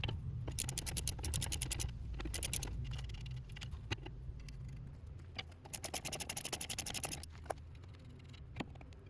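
Two runs of rapid clicking and scraping, about a second and a half each, with a few single clicks between them, over a steady low hum.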